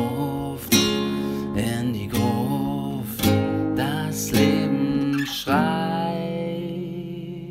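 Acoustic guitar strummed chords, about one stroke a second; the last chord, a little over five seconds in, is left to ring and fade.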